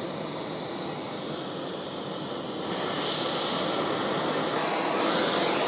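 Large gas heating torch burning with a steady hiss as it preheats a cast iron part before brazing; the hiss grows louder about three seconds in.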